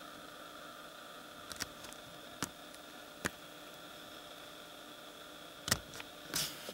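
Steady faint hiss and hum, broken by about half a dozen short, sharp clicks at irregular intervals, the loudest near the end.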